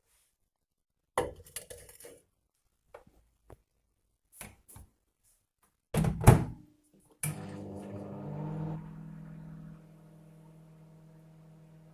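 Microwave oven being loaded and started: a few light clicks and knocks, a loud thunk about six seconds in, then the oven switching on with a steady hum that settles slightly quieter a couple of seconds later.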